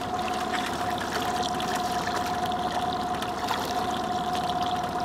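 Water trickling and sloshing beside a slowly trolling boat, over a steady thin motor whine. A hooked rainbow trout splashes at the surface alongside near the end.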